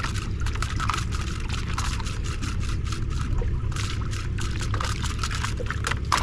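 Water lapping and splashing against a boat's hull in many small, irregular splashes, over a steady low rumble.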